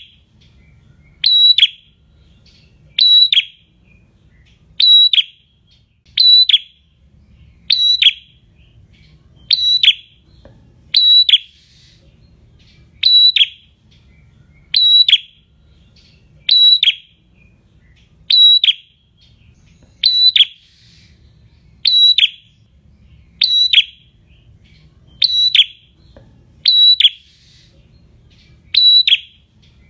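Caged prenjak calling: about seventeen short, sharp calls, each a high note that drops steeply, repeated every second and a half to two seconds in an even, alarm-like rhythm.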